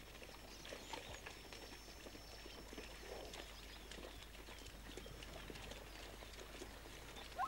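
Faint, scattered hoof clops of a zebra herd moving about on stony ground.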